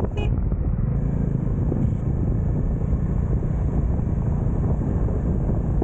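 Bajaj Dominar motorcycle riding along a wet road: a steady low rumble of engine, tyres and wind buffeting the microphone. A short high-pitched blip sounds just after the start.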